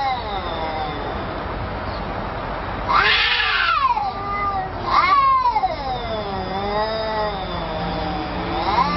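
Domestic cat yowling in long, drawn-out calls, one after another, their pitch bending up and down; the loudest starts about three seconds in and falls away, followed by a long wavering one.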